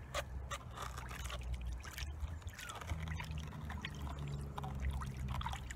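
Water sloshing and splashing in a plastic gold pan held in a tub of water as concentrates are swirled and washed down, in many small irregular splashes over a low steady hum.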